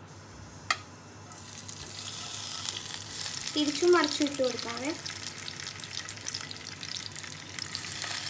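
Marinated chicken pieces sizzling and crackling as they shallow-fry in hot sunflower oil in a frying pan. The sizzle starts suddenly about a second in as the chicken goes into the oil, after one light knock.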